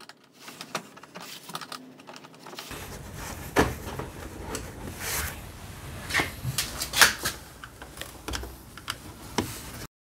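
Hands working at the plastic body panels and fasteners under a Honda PCX 125 scooter: irregular plastic clicks and knocks, the loudest about seven seconds in.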